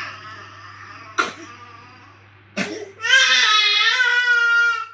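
A baby crying: a short cough-like burst about a second in, another sharp sound a little past halfway, then one long wail over the last two seconds.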